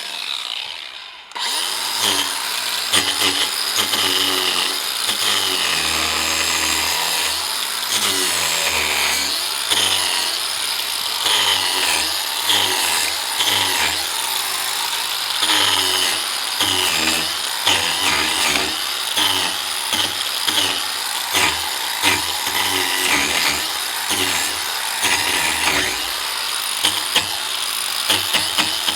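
DeWalt 18V XR cordless angle grinder with a wood carving disc, stripping bark from a log. It starts up about a second in, and its motor pitch dips and recovers again and again as the disc bites into the wood.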